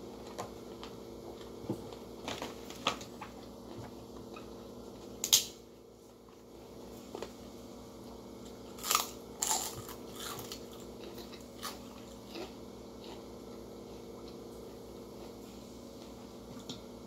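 Close-up eating sounds: crisp crackers being bitten and chewed, a string of sharp crunches, loudest about five seconds in and again around nine to ten seconds in, over a steady low hum.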